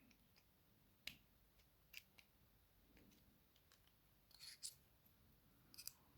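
Near silence with a few faint, scattered metallic clicks of small hand tools working at the C-clip on the back of a euro lock cylinder.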